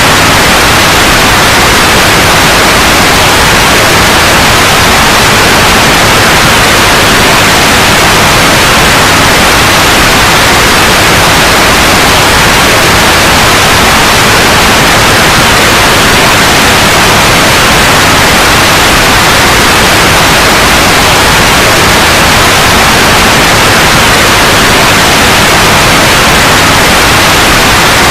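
Loud, steady white noise: an even hiss across the whole range, unchanging throughout.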